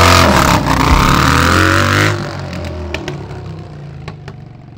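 Motorcycle engine revving hard as the bike accelerates away on dirt, its pitch climbing and dipping with the throttle; about two seconds in it drops off and fades, leaving a low rumble and a few light ticks.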